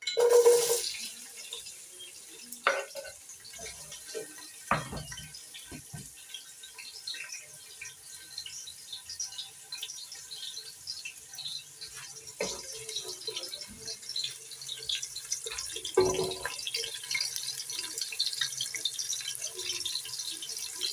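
Chopped red onions frying in hot cooking oil in a sufuria, a steady crackling sizzle. The sizzle is loudest right at the start as the onions go into the oil. A few short knocks of the stirring spoon against the pan come through it.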